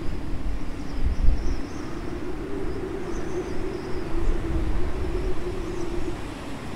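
Breeze buffeting the microphone in gusts, under a steady low engine-like drone that swells in the middle and fades near the end, with a few faint high chirps.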